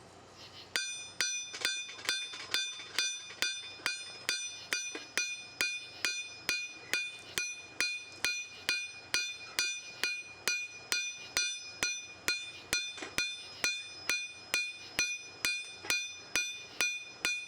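Hand hammer striking a knife blade on an anvil in a steady rhythm of about two blows a second, starting about a second in, each blow leaving a bright metallic ring: forging the bevel into the knife's edge.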